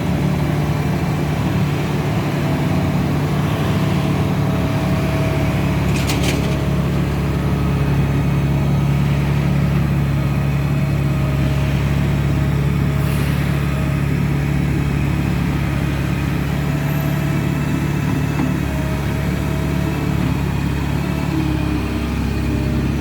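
Diesel engine of a loader running steadily at a constant speed, with brief clicks about six and thirteen seconds in.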